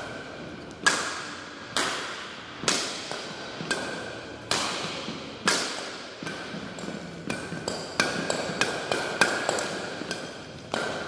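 Badminton shuttlecock struck back and forth in a rally, one crisp racket-string hit about every second, each ringing on in the echo of a large sports hall. The hits come from the stiff, 85-gram Ashaway Phantom X-Speed II racket.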